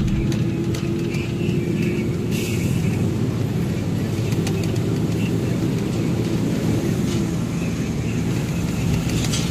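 Truck engine running steadily with road noise while driving, heard from inside the cab.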